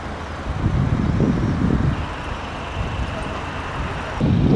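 Outdoor street noise: a steady low rumble like road traffic, with a faint high whine for a couple of seconds in the middle; the rumble grows louder near the end.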